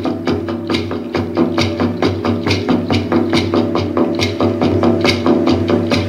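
Background music: a steady percussion beat of about two strokes a second over held low tones.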